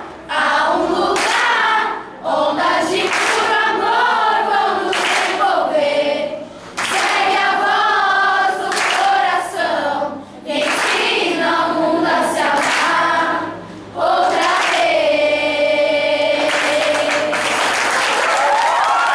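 Children's choir singing in phrases with short breaks between them, then holding one long final note about three quarters of the way through.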